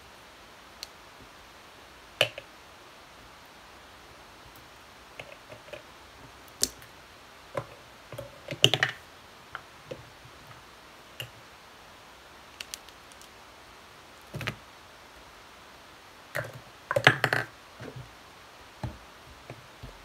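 Irregular clicks and knocks of plastic slime tubs and containers being handled, picked up and set down on a tabletop. The loudest clusters come about nine seconds in and again around seventeen seconds.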